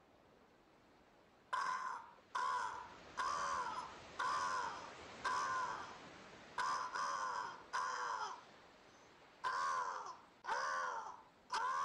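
Crows cawing: harsh caws repeated about once a second, starting about a second and a half in.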